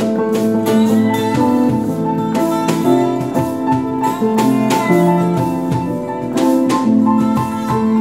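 Live acoustic pop music from a small band, led by guitar, with notes moving step by step over an even pulse.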